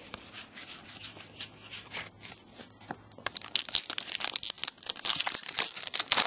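Plastic wrapper of a trading-card pack crinkling and tearing as it is opened, with the cards rustling in the hands. The crinkling grows denser and louder about three seconds in.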